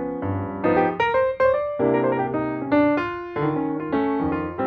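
Background piano music, a melody of single notes struck a few times a second over held lower notes.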